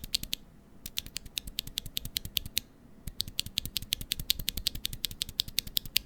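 Unlubed New Giant Red linear mechanical keyboard switches being typed on rapidly, in three runs of fast key clicks with short pauses about half a second in and near the three-second mark. The switches sound scratchy and pingy, as budget switches do before lubing.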